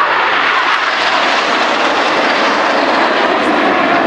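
Steady jet roar of the Red Arrows' BAE Hawk T1 jets flying in formation.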